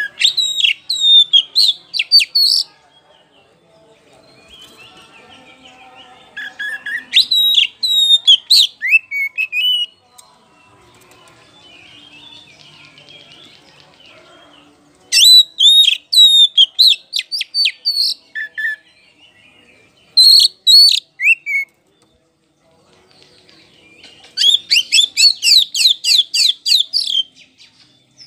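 Oriental magpie-robin of the black-bellied 'kacer poci' form singing loudly in five bursts of quick, sliding whistled notes with short pauses between. The last phrase, near the end, is a fast run of repeated notes at about four a second.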